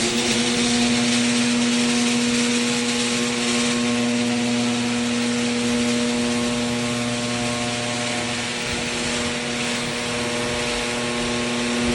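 Genie garage door opener motor running steadily as it lowers the door: a constant electric hum with overtones over the whir of the drive.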